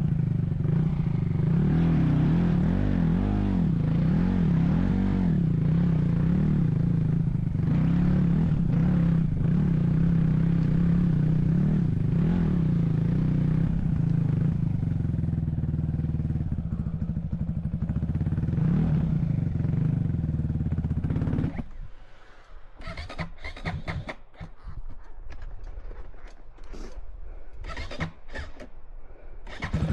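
A motor vehicle's engine running steadily, its pitch wavering up and down. About two-thirds of the way through it drops away, leaving only intermittent scraping and clattering.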